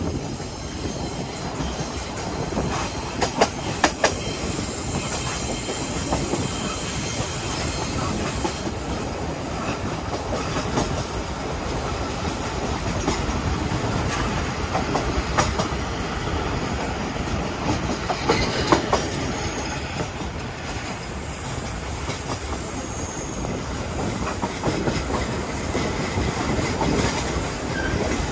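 Train wheels running over the rails, heard through the open toilet chute of a moving local passenger carriage. It is a steady rumble with a few sharp clacks about three and four seconds in and again near the middle.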